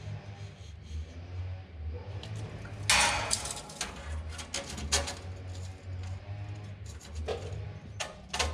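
Handling noise of a steel tape measure being pulled out and held against a metal ceiling: a brief scraping rustle about three seconds in and scattered light metallic clicks, over a low steady hum.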